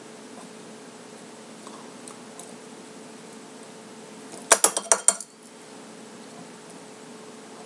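Metal utensil clinking against a dish: a quick run of five or six sharp clinks that ring briefly, a little past halfway through, over a faint steady hum.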